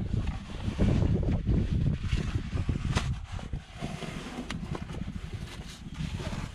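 Fabric seat cover rustling and scraping as it is pulled and stretched over a truck seat cushion, over a low rumble of wind on the microphone. There is a sharp click about three seconds in.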